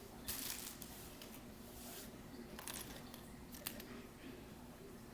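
A few short rustles and clicks of small plastic toys being handled, with the first, about half a second in, the loudest.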